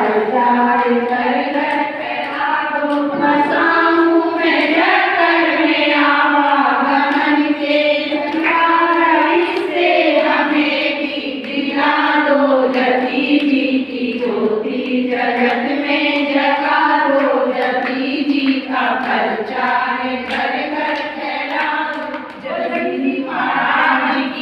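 A group of women singing a Jain aarti hymn together in Hindi, a steady chorus of voices.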